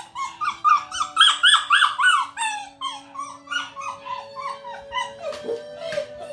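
English springer spaniel puppy crying in a crate during separation training: a quick run of short, high, arching whines, about three a second, that grow fainter after about three seconds. Background music with held notes plays underneath and takes over near the end.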